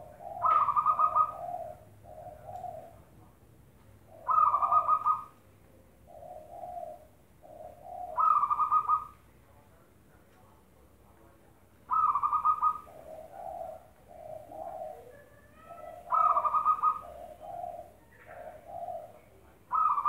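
Zebra dove (perkutut) cooing in repeated phrases about every four seconds. Each phrase opens with a loud trilled note, followed by several lower, softer coos.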